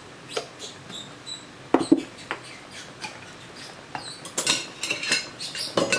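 Handling sounds of cooking utensils: a spoon and spatula clinking and knocking against a wok and a spice jar. There are two sharp knocks about two seconds in, then a quick run of bright clicks and scrapes near the end.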